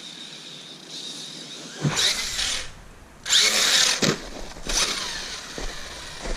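Brushless motor of an Arrma Kraton 6S RC truck whining in short bursts of throttle, with a sharp thump about two seconds in and another about four seconds in.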